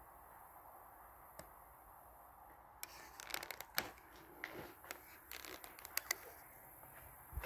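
Faint crackles, clicks and scrapes of footsteps on a crumbling, debris-strewn floor, starting about three seconds in.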